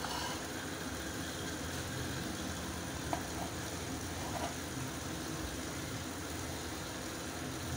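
A steady low mechanical hum with a hiss over it, and a couple of faint light taps midway.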